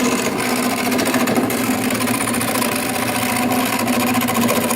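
Wood lathe running, its motor holding a steady hum under a fast, even chatter from the spinning workpiece and tool.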